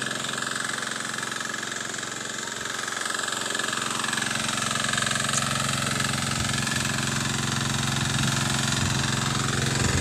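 A small engine running steadily at a constant speed, with an even low hum.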